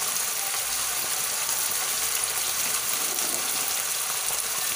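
Corned beef and garlic frying in oil in a pan, giving a steady sizzle.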